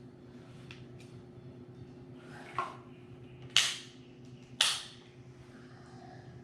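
Handling of a multimeter and its test leads: a few faint ticks, then two sharp clicks about a second apart, over a steady low hum.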